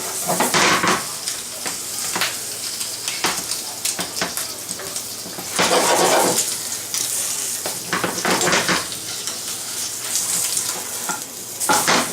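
Butter sizzling in a hot frying pan under toasting tortilla sandwiches, with a spatula scraping and pressing against the pan in a few louder bursts.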